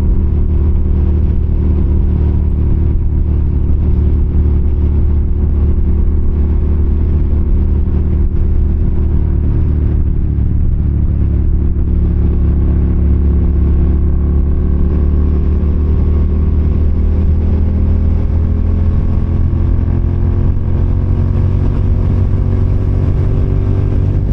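Engine of a moving road vehicle running steadily under way. Its pitch rises slowly over the last ten seconds or so as it picks up speed.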